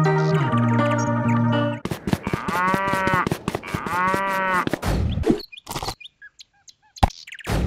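Background music, then a cow moos twice, each a long call that rises and falls, over a quick ticking. A few sharp knocks follow near the end.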